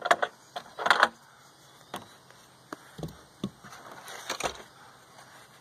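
Irregular wooden knocks and scrapes as a wooden guide board fitted with an aluminium rail is lifted off a log and handled, with the loudest clatter about a second in and another cluster around four and a half seconds.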